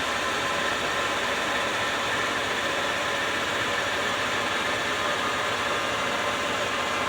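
Steady machine noise: an even hiss with a faint whine, unchanging throughout.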